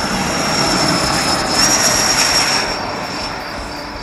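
Electric ducted fan (Schuebeler DS-94) of a Fiat G-91 model jet during its take-off run: a high-pitched whine over rushing air. The whine rises slightly in pitch about one and a half seconds in, is loudest around two seconds in, then fades as the jet moves away and lifts off.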